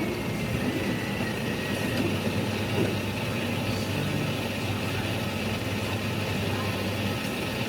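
Steady rumble and hum of a moving vehicle, with a faint high whine held throughout.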